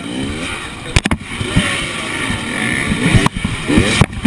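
Enduro motorcycle engine revving in short bursts, rising in pitch near the start and again near the end, broken by several sharp knocks as the bike clambers over log and tyre obstacles.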